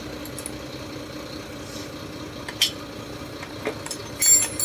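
Metal tools clinking against scooter engine parts during disassembly: a few sharp clinks, with the loudest cluster near the end, over a steady background hum.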